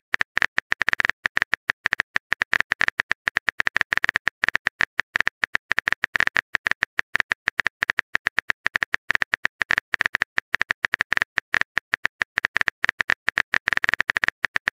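Rapid, irregular phone-keyboard tapping clicks from a texting app's typing sound effect, many a second, keeping pace with text being typed into a message box.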